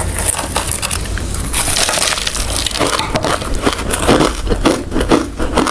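A person biting and chewing hard ice: dense, crackling crunches that settle into a quick, regular chewing rhythm in the second half.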